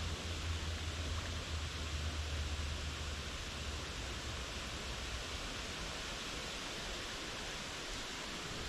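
Steady rush of flowing creek water, with a low rumble underneath that fades out about halfway through.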